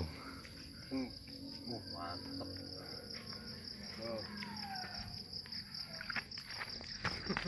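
Steady, high-pitched chorus of insects trilling on one even pitch, with a few faint short human calls from further off.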